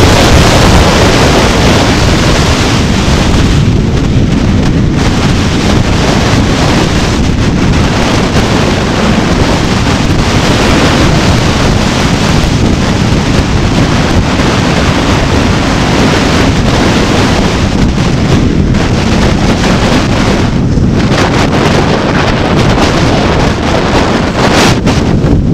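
Heavy, steady wind buffeting a moving microphone, a loud rumble and hiss with no clear tone. There is one short sharp click or knock near the end.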